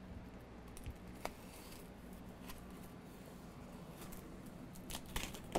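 Utility knife slitting the packing tape along a cardboard box's seam: faint scattered scrapes and ticks, the sharpest a second in and near the end.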